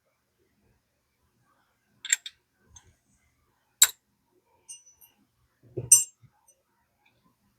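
A few separate sharp clicks and light taps of a small steel ratchet's parts being handled: a double click about two seconds in, a crisp one near four seconds, and a louder click with a dull knock near six seconds.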